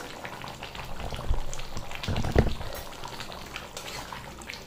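Pots bubbling at the boil on the stove, with a metal spatula stirring thick chicken curry in a steel pan. A couple of dull knocks come about one and two seconds in, the louder near the middle.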